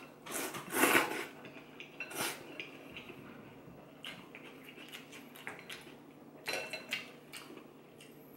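A loud slurp of soup noodles about a second in, then chopsticks and a spoon clinking and tapping against a white ceramic bowl in short scattered clicks.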